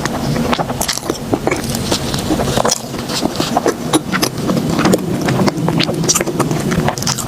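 Close-miked mouth biting and chewing a jumbo pineapple bun: a quick, irregular run of small wet clicks and soft crunches, over a steady low hum.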